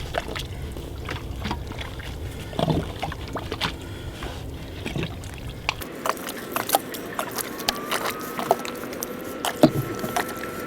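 Water being poured into holes drilled in the soil to moisten them for a grounding electrode, with scattered knocks and clicks.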